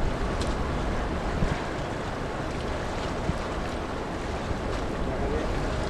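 Steady wind noise on the microphone over the wash of harbour water.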